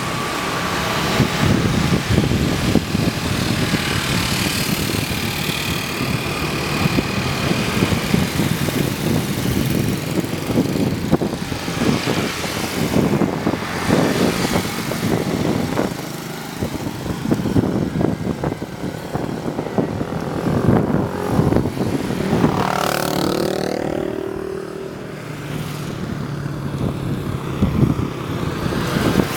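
Street traffic, motor vehicle engines running steadily. About two-thirds of the way through, one engine's pitch rises and then falls as it passes close by.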